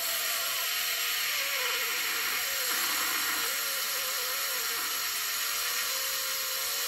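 A steady rushing noise with a faint wavering tone inside it, cut in abruptly and cut off abruptly near the end: an edited-in sound effect laid under a zoom.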